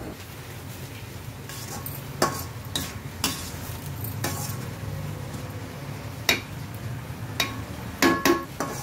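A steel spoon stirring grated beetroot cooking in water in a stainless-steel pan, clinking and scraping metal on metal about once a second, with a louder cluster of knocks near the end, over a steady low hum.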